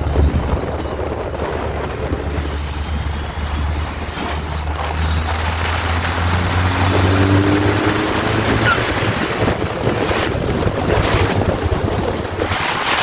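Ariel Atom 4 at highway speed: the drone of its turbocharged Honda 2.0-litre four-cylinder under heavy wind rush over the open cockpit. The engine note climbs briefly about seven seconds in as it pulls harder, and the wind noise swells near the end.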